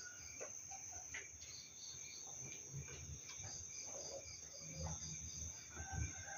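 Night insects calling: a steady high-pitched cricket trill, with a second chirp pulsing about three times a second.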